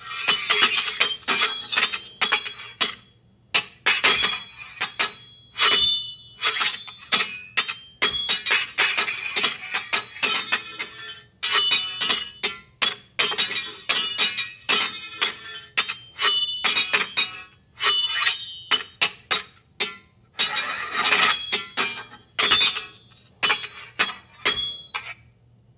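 Sound-effect track of sharp clinking impacts, struck one after another in quick irregular clusters, each with a brief high ringing tone.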